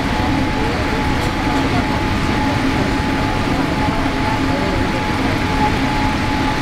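Cabin noise of a Boeing 787 airliner on its landing approach: a steady roar of engines and rushing air, with a thin steady whine held above it.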